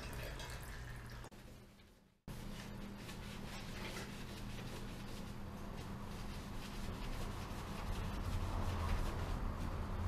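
Sound fades almost to silence, then cuts back in about two seconds in. After that a steady low hum runs under faint clicks and scrapes of hands working at a motorcycle's front wheel and brake.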